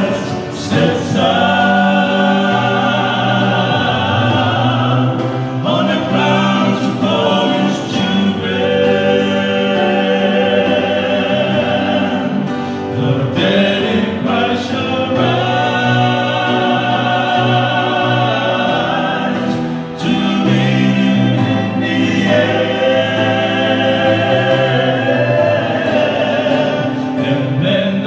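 A male vocal quartet singing a gospel song in close harmony, their voices amplified through microphones, in long held phrases with short breaks between them.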